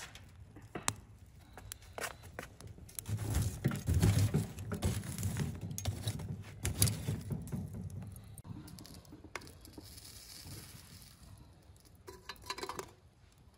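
Wood fire crackling, with scattered sharp pops of burning logs and a louder stretch of low rumble from about three to eight seconds in. A short burst of clinking near the end.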